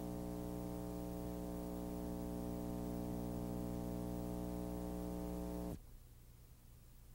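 Steady low electrical hum with a buzzy edge, which cuts off suddenly about six seconds in.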